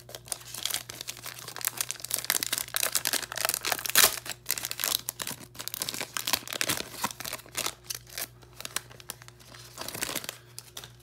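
Panini Contenders football value pack wrapper being torn open and crinkled by hand: continuous crackling with sharp tears, the loudest about four seconds in, thinning out near the end.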